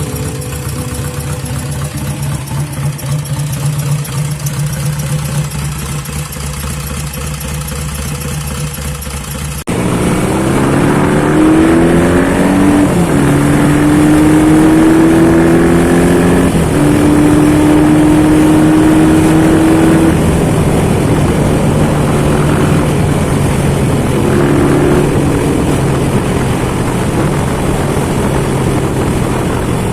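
250cc Norton Jubilee twin racing motorcycle engine running. About ten seconds in it cuts abruptly to a louder run, the engine revved with its pitch rising in several sweeps and falling back between them.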